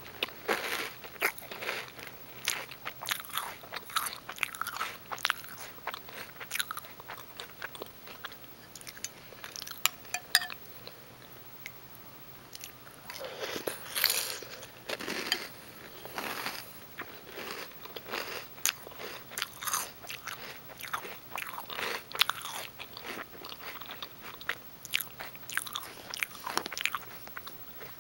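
Close chewing of Reese's Peanut Butter Puffs cereal: irregular crunches of the puffs between the teeth. There is a quieter lull about a third of the way in, then the loudest crunching about halfway through.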